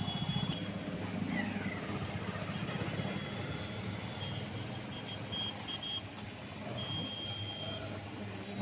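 Steady low engine hum with short high-pitched beeps coming and going.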